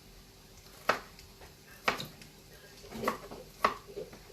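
Kitchen knife chopping a bell pepper into cubes on a cutting board: four sharp knife strikes, about a second apart.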